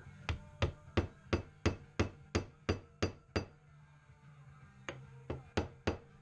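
Rubber mallet striking a wooden file handle in quick sharp knocks to seat it on the file: about ten blows at roughly three a second, a short pause, then four more.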